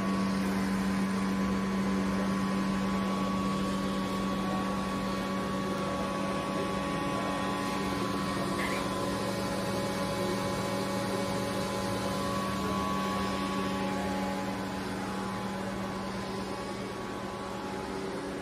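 Steady electrical hum from a CNC lathe's electrical cabinet: a low tone with a fainter higher whine and a fan-like hiss. It fades a little near the end.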